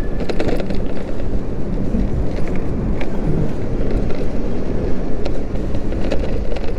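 Steady wind rush and road rumble from riding an electric moped, with a few faint clicks and rattles.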